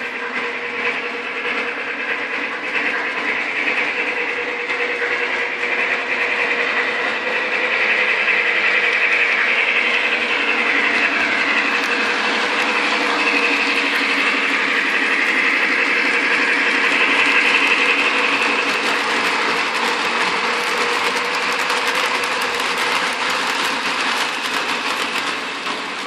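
Lionel O-gauge model trains running on three-rail track, including the Legacy #1062 Mikado steam locomotive: a steady mechanical whir and clatter of wheels and motors. It grows louder in the middle as the locomotive passes close.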